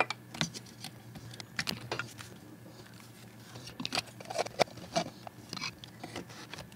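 Irregular light clicks and knocks of an electric pencil sharpener being handled: its twist-off lid off and the plastic body turned over in the hands, with one sharper click right at the start.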